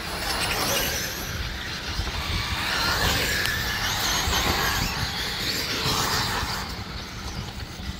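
Electric 1/8-scale RC buggies running on a dirt track: their electric motors whine, rising and falling in pitch as the cars speed up and slow down.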